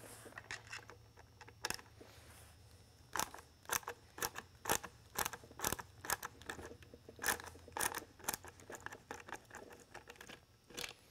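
Hand screwdriver backing out the Phillips screw on a rotating beacon's tension strap: a long series of sharp, irregular clicks and ticks, roughly two a second, as the screw is turned loose and the plastic strap and dome are handled.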